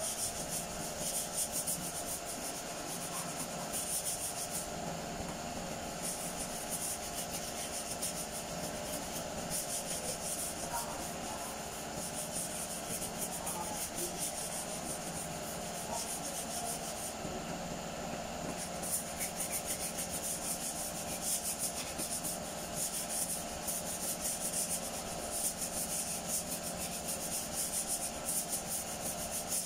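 Hand sanding of a car's front fender: sandpaper rasping over the panel in quick back-and-forth strokes, stopping briefly twice, over a steady faint hum.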